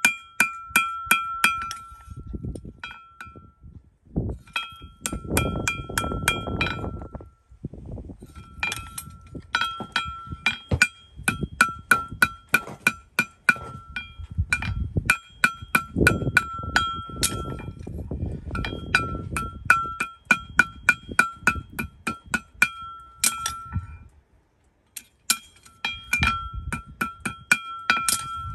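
A farrier's hammer striking a steel horseshoe on an anvil to shape it. The anvil rings at one clear pitch with every blow, in quick runs of several blows a second broken by short pauses.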